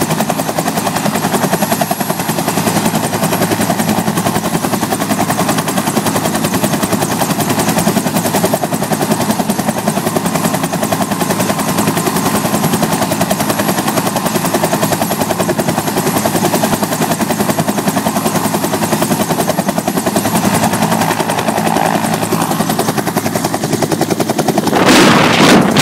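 Bell Huey-type two-bladed helicopter running on the ground at flight rotor speed: a steady rapid rotor chop over the turbine. About a second before the end it suddenly gets much louder as it begins to lift off, the rotor downwash buffeting the microphone.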